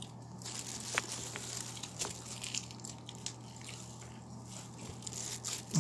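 Faint mealtime noises: a few small clicks and soft handling sounds of eating from food containers, over a steady low hum.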